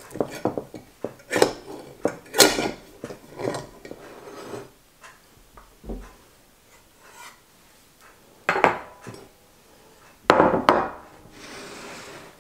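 Metal spatula clinking and scraping against the sides of a glass loaf dish, several short strikes a second or so apart, as a baked loaf is loosened. Two louder clattering knocks follow, near the middle and toward the end, as the loaf comes out onto a wooden cutting board.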